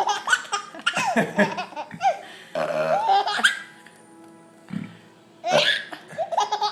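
Baby boy laughing in several bursts with short pauses between them.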